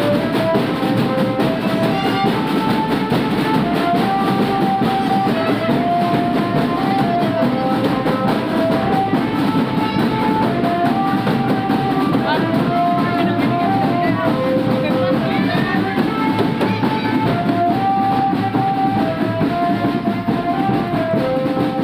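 Marching drum band playing: drums keep a steady beat under a melody of held, stepping notes from Basuri telolet horns.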